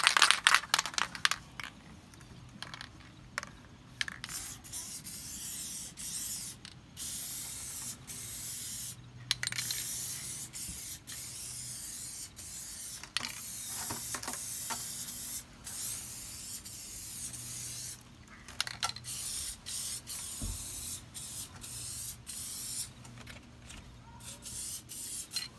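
Aerosol can of Gorilla spray adhesive spraying in a series of hissing bursts of varying length, with short gaps between them.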